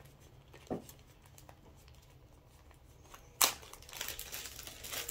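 Quiet handling at first with a soft knock under a second in, then one sharp knock about three and a half seconds in, followed by the crinkling of packaging as the parts bag and instruction paper are handled.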